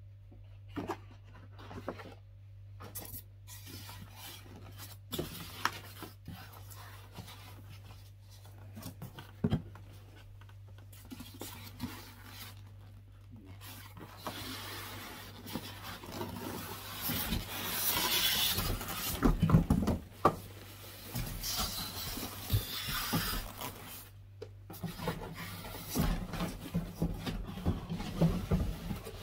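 Printer packaging being handled during unboxing: rubbing and rustling with scattered knocks, the rustling louder and busier from about halfway through until near the end, over a faint steady low hum.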